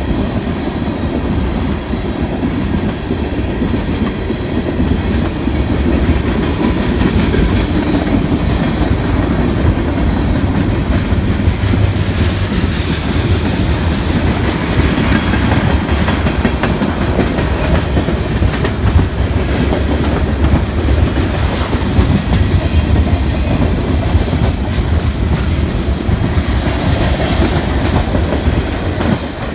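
Freight cars of a BNSF manifest train rolling past close by: a loud, steady rumble with the wheels clicking over the rail joints.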